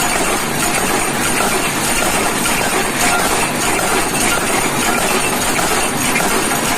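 Workshop machinery running with a loud, steady noise and no distinct hammer blows.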